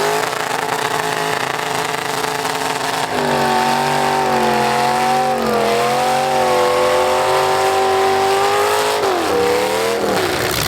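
Fullsize V8 demolition derby car engines revving hard. The engine pitch holds high and wavers for several seconds, a higher note joins about three seconds in, and the pitch drops about nine seconds in before climbing again near the end.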